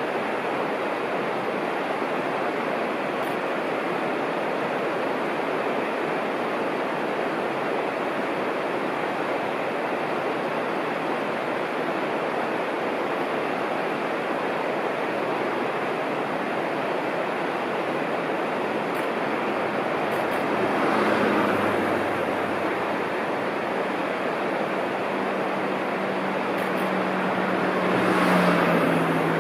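KiHa 120 diesel railcar under way, a steady rushing rumble of wheels on track. About two-thirds of the way in, a low steady engine hum comes in, and there are two brief swells in loudness.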